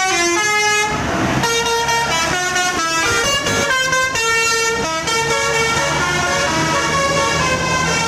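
Bus 'telolet' horn, a multi-tone horn playing a quick tune of stepped notes that change several times a second. A bus engine runs underneath.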